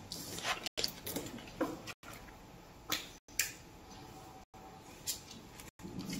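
A few faint, short clicks and taps at irregular moments over quiet room noise.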